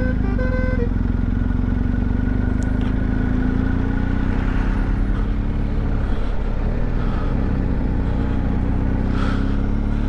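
Motorcycle engine running at a steady cruise, its pitch drifting slightly up and down, with road and wind noise over it.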